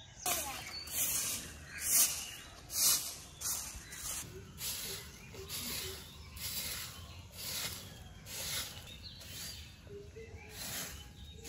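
Long-handled stick broom sweeping sandy, gritty ground in repeated swishing strokes, about one a second, the strokes in the first few seconds the loudest.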